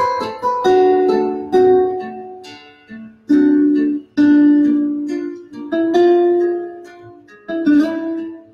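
Instrumental music played on a plucked string instrument: notes and chords struck sharply, each left to ring and die away.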